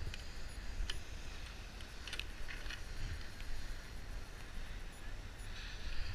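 Wind rumbling on an action camera's microphone during a chairlift ride, with a few light clicks about one, two and two and a half seconds in.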